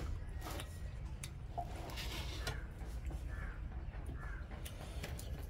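Eating at close range: chewing and small wet mouth clicks, with two short calls in the background about three and four seconds in.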